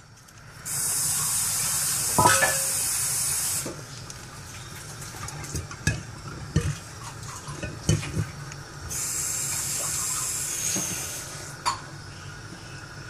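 Hot starch water draining off cooked rice from a tipped brass pot, under a cloth-held steel lid plate, into a steel bowl. Two spells of steady, high rushing noise, each about three seconds long, with a few sharp metal clinks of plate against pot in between.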